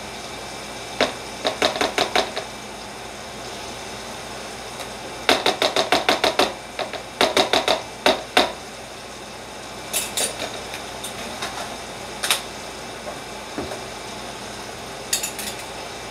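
Metal fork crushing boiled sweet potato in a plastic tub: runs of quick tapping knocks as the fork strikes the food and the container, about five or six a second, coming in several bursts with short pauses between.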